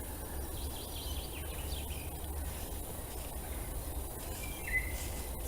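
Outdoor woodland ambience: a steady low rumble under a soft even hiss, with a few faint bird chirps and one short whistled bird note that steps down in pitch near the end.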